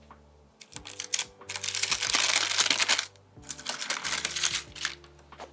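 Parchment paper crinkling as it is peeled out of a blind-baked tart shell, in two stretches: about 1.5 s in and again about 3.5 s in.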